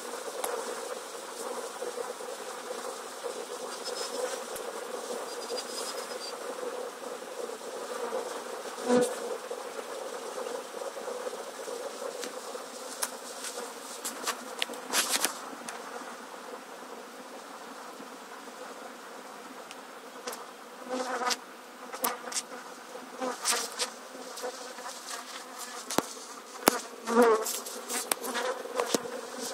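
Honeybee swarm humming steadily as thousands of bees crawl into their new hive. Now and then a single bee buzzes loudly close by, its pitch wavering.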